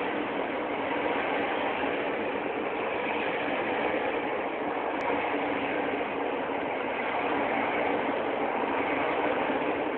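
A TLK passenger train's coaches rushing past close alongside, heard from inside another train's carriage: a steady, loud rumble and rush of wheels and air.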